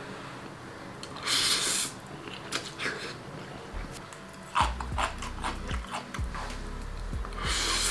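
Person slurping instant noodles off chopsticks twice, about a second in and again near the end, with wet chewing and lip-smacking between.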